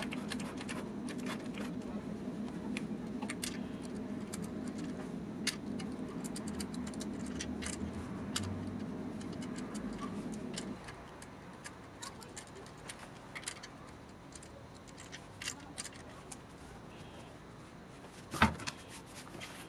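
Irregular light clicks and taps over a steady low hum that cuts off suddenly about halfway through, then one sharper knock near the end.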